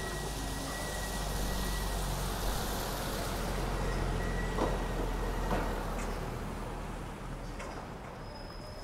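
Distant city-centre traffic and trams: a steady low rumble, with a thin high whistle that stops about two seconds in.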